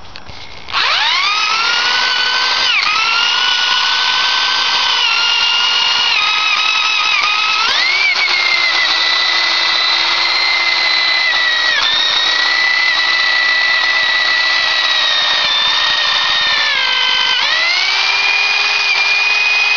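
Electric motor of a homemade plumbing snake starting up about a second in and running at high speed with a whine. Its pitch sags several times as it bogs under load from the spinning cable, then climbs back.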